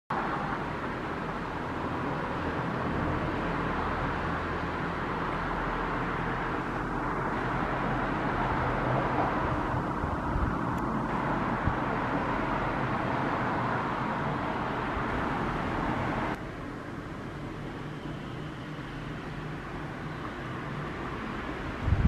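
Steady background noise with a low hum, like distant road traffic. It drops abruptly to a lower level about sixteen seconds in and then carries on steadily.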